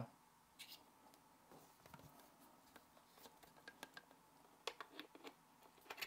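Near silence with a few faint, short clicks and taps from handling a metal camera quick-release clip and plate, with a small cluster near the end.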